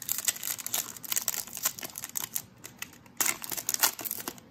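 Foil wrapper of a 2020 Absolute football card pack crinkling and tearing as it is ripped open by hand. It makes a rapid run of sharp crackles, with a louder burst a little after three seconds in.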